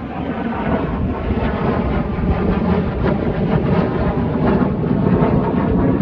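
Fighter jet sound effect: a loud jet roar that builds steadily.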